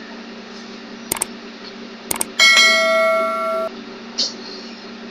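Two quick double clicks, then a bell-like computer alert chime that rings for just over a second and cuts off suddenly. Under it runs a steady low hum.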